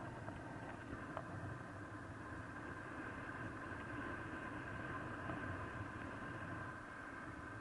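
Steady rushing wind noise on the microphone during a paraglider flight in strong wind, with a faint steady high whistle.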